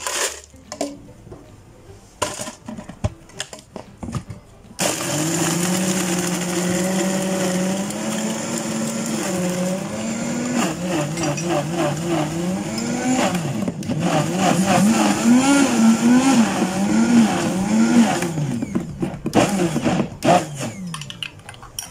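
Electric blender running for about fifteen seconds while blending a frappé drink, its motor pitch wavering up and down as the load changes, then switched off. A few knocks and clicks come before it starts.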